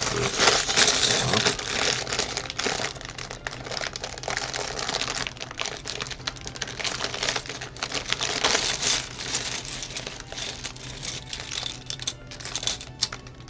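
Plastic Lego parts bags crinkling as they are torn open and handled, with small plastic bricks clicking and rattling. It is loudest at the start and again about eight seconds in.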